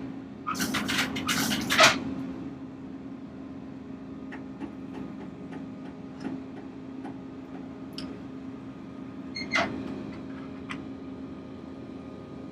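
Heavy equipment's engine idling with a steady hum. Over it, a quick run of metallic clattering and scraping in the first two seconds, then scattered light clinks and taps.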